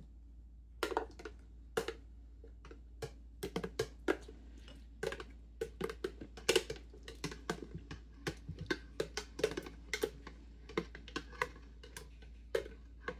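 Wooden chopsticks clicking and tapping irregularly against a stainless-steel mesh strainer and glass bowl while kimchi is scraped into the strainer to drain.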